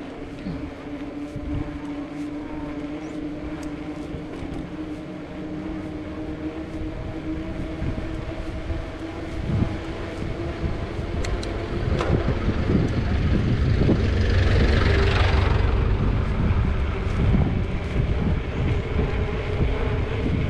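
Motorcycle engine running at a steady cruising speed, with road and wind noise; the rush grows louder a little past halfway and then eases.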